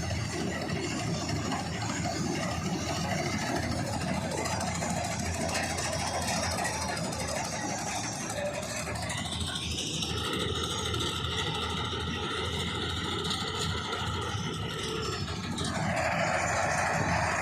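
Diesel engine of a John Deere 5310 tractor driving a mounted combine harvester, running steadily. From about halfway through, a steady high tone with overtones sounds over it for some six seconds, then stops.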